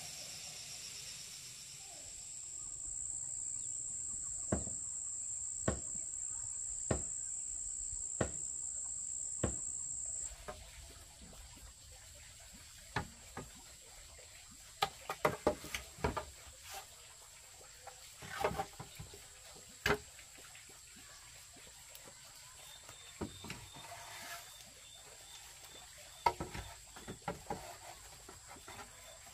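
Steady high-pitched insect drone with a sharp knock about every second, five knocks in all; the drone cuts off suddenly about ten seconds in. After that come scattered knocks and clattering, with a faint repeated high chirp near the end.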